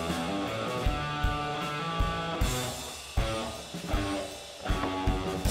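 Instrumental rock music with guitar over a drum-kit beat.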